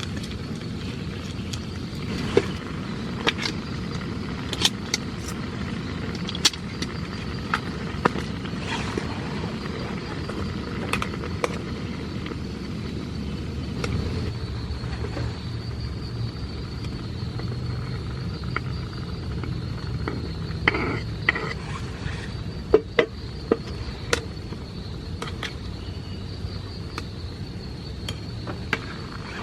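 Steady rain with scattered louder drips and taps over a low rumble, and a thin, steady high-pitched drone throughout.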